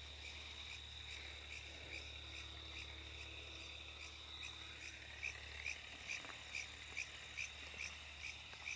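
Night crickets: one steady high trill, with a second insect's regular short chirps, about two or three a second, growing louder in the second half.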